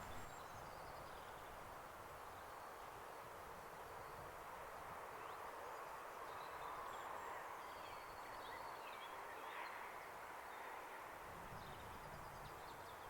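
Faint outdoor ambience with scattered birds chirping over a low, steady background hiss.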